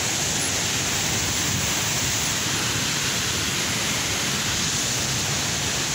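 Waterfall rushing steadily into a pool.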